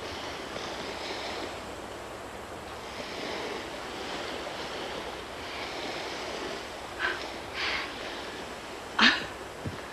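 Surf washing steadily on a beach. Near the end come three short breathy sounds, the last and loudest about nine seconds in.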